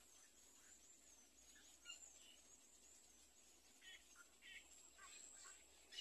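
Faint, scattered short bird calls, more frequent in the second half, over a steady high-pitched whine and soft rapid chirping.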